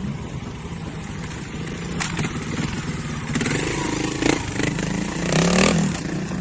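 Trials motorcycle engine running at low revs with short bursts of throttle as it picks its way over rocks, the strongest rev about five and a half seconds in. A few sharp knocks break through along the way.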